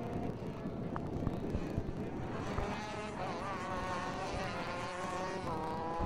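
Two-stroke racing kart engines buzzing as the karts accelerate toward the camera. The pitch climbs from about two and a half seconds in, dips once near the end, then climbs again.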